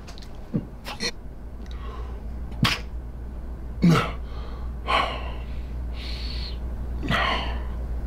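A man's sharp gasping breaths and forced exhales, about six in a row, the strongest about four seconds in: reactions to deep thumb pressure worked into his chest muscle.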